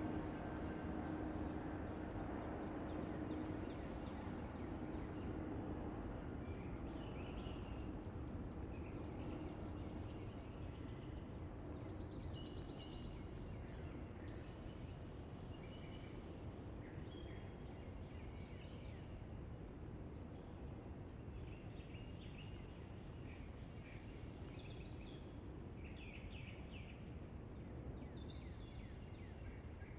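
Woodland ambience: scattered short bird chirps and calls over a steady low background rumble. A faint steady drone fades away over the first ten seconds or so.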